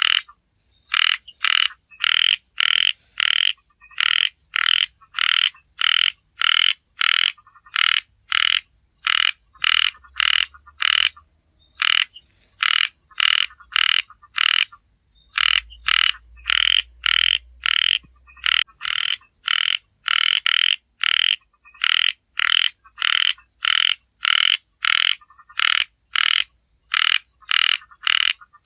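Small frogs (khiat) calling: short croaks repeated about two a second, with a few brief pauses.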